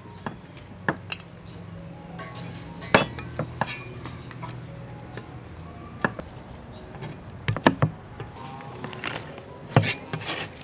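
Cleaver chopping long green beans on a round wooden chopping board: irregular sharp knocks as the blade strikes the board, some in quick pairs, over soft background music.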